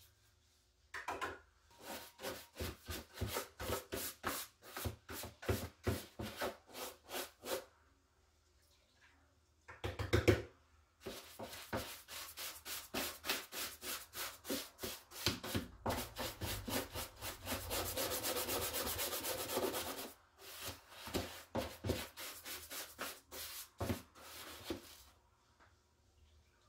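Stiff-bristled hand brush scrubbing a plastic cat-litter scoop and the plastic litter tray in quick, rhythmic back-and-forth strokes. There is a pause about eight seconds in, then a louder knock, and the strokes run together into continuous scrubbing for a few seconds further on.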